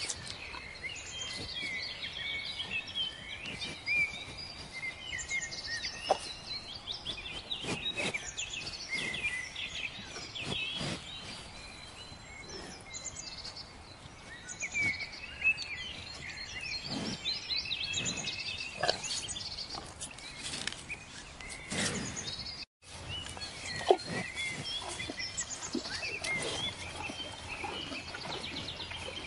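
Small birds chirping throughout, with scattered short crunching clicks of cattle tearing and chewing grass.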